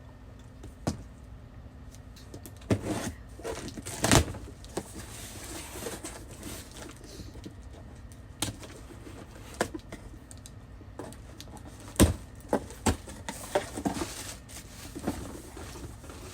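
Perfume bottles and their packaging being handled: scattered clicks, taps and short rustles, with two sharper knocks about four and twelve seconds in.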